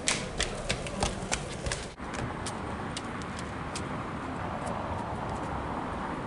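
Hard footsteps clicking on stone paving, about three a second, sharp for the first two seconds, then fainter and thinning out, over a steady hiss.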